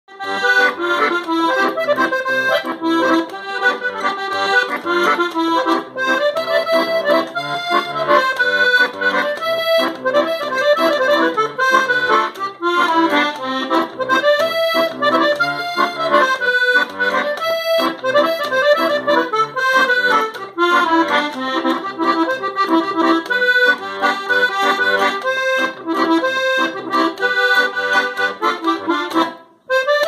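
Parrot 12-bass diatonic button accordion, three rows tuned in F, C and G, playing a tune: a moving melody over bass-and-chord accompaniment, with a brief break just before the end.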